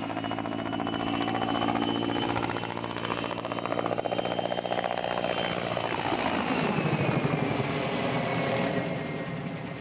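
Mil Mi-2 helicopter's twin turboshaft engines and main rotor in a low, close flypast: a steady turbine whine over the fast chop of the rotor blades. The whine drops in pitch about six to seven seconds in as the helicopter passes closest.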